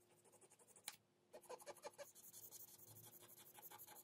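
Near silence, with the faint, rapid scratching of a cotton swab rubbed over the copper face of a freshly etched circuit board, and a small click about a second in.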